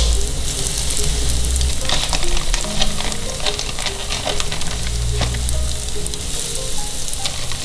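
Breaded fish balls with a fish-roe filling frying in hot oil in a pan: a steady sizzle with many small crackling pops.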